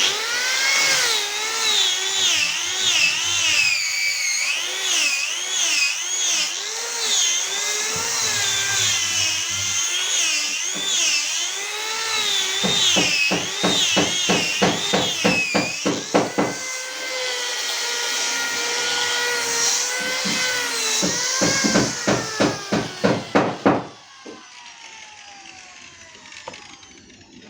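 Electric sander running on the wooden bass speaker cabinet, its motor whine wavering in pitch as it is pressed and moved over the wood. In two stretches, about halfway and near the end, it pulses three or four times a second. It is switched off about 24 seconds in and winds down.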